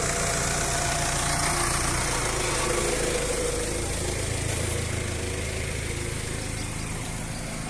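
Ford pickup truck's engine idling steadily.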